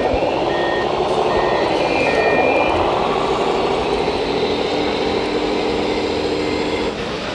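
Radio-controlled model truck reversing: a reversing beeper beeps about every 0.7 s for the first two seconds, over a motor whine that dips and rises in pitch and then holds steady.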